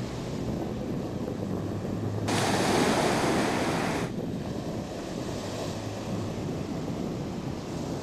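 Ocean surf washing onto a beach, a steady rush with wind on the microphone. From about two to four seconds in, a louder rush of surf starts and cuts off abruptly.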